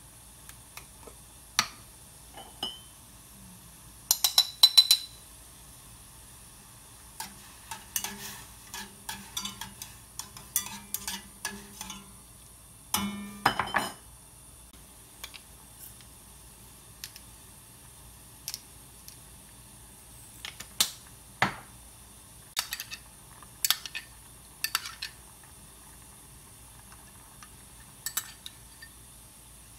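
Metal spoon clinking and tapping against dishes in irregular clusters, a few strikes ringing briefly, over a faint steady hiss from a stainless steel saucepan simmering on a gas burner.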